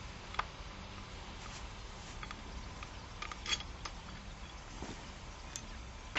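A few faint, sharp metallic clicks of a hand tool on a solar-panel mounting clamp and rail, the loudest about three and a half seconds in, over a steady low background hiss.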